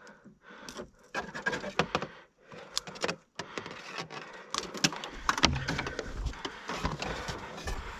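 Irregular clicks, knocks and rustling of a fiber optic drop cable and pulling gear being handled by hand after the conduit pull.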